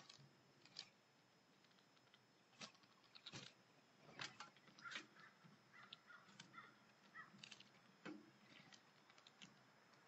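Faint taps and knocks of a blue jay pecking at seed on a wooden platform feeder, with a few short bird calls between about four and eight seconds in. A faint steady high tone sits underneath.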